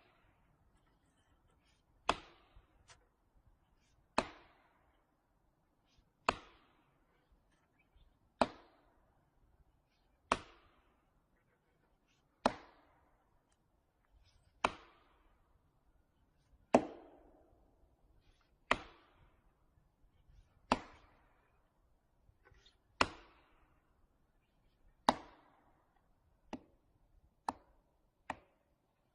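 Steady chopping blows on wood, about one every two seconds, each a sharp crack with a short ring after it; near the end come three lighter, quicker taps.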